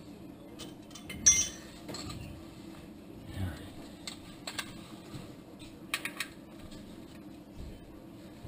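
Metal hand tools clinking: a socket and extension being handled and a ratchet fitted onto an oil drain plug. A few sharp clicks, the loudest about a second in and a cluster around six seconds.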